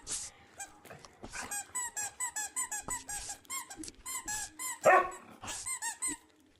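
Squeaky dog toy, likely one that sounds like a chicken, squeaked over and over in short high squeaks, about two to three a second, with a louder squeal near five seconds in.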